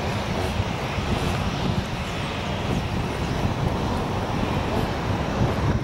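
Boeing 737-700's CFM56-7B turbofan engines running steadily as the jet moves along the runway: a continuous jet-engine rumble.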